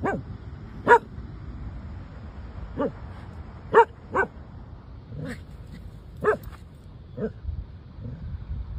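A dog barking: about eight single, short barks at irregular intervals, the loudest about one second and four seconds in.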